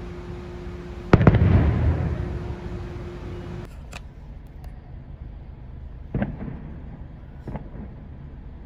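Aerial fireworks shells bursting: one loud boom about a second in with a rumble that rolls on for a couple of seconds, then two fainter pops later.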